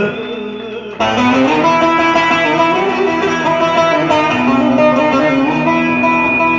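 Amplified bağlama (Turkish long-necked saz) played through a PA in a fast instrumental interlude of plucked notes. It comes in loudly about a second in, after a brief quieter moment as the sung line ends.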